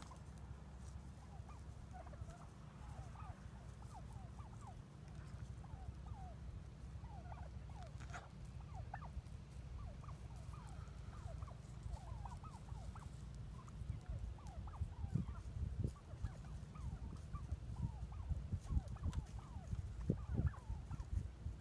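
A flock of wild turkeys calling softly to one another, many short clucks with quick pitch slides, over a low steady rumble. In the second half, sharp low knocks and rustles come in and become the loudest sound.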